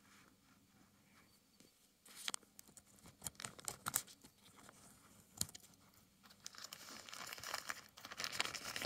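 Thin plastic packaging bag crinkling and tearing as it is cut and pulled open, with sharp clicks. It starts about two seconds in, and the crinkling becomes denser and more continuous near the end.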